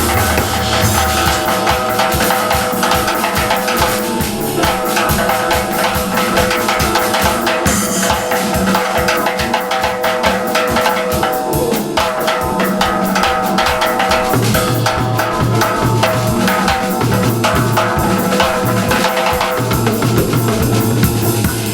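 Band music with a driving drum kit, bass drum and snare at a fast steady beat under sustained pitched instruments.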